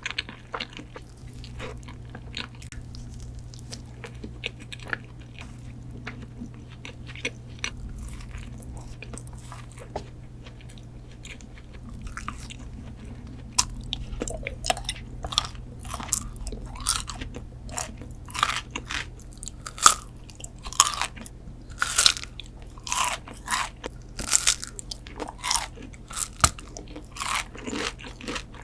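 Close-miked ASMR eating of a sweet dessert: soft chewing and mouth clicks, then from about halfway loud crisp bites and crunches coming several times a second, over a faint steady low hum.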